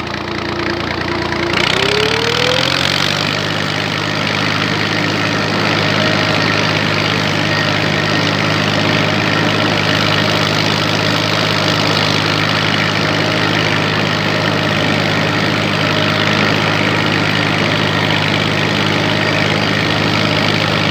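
A 1985 Massey Ferguson tractor's diesel engine running. About two seconds in its pitch rises as it speeds up, then it holds a steady speed.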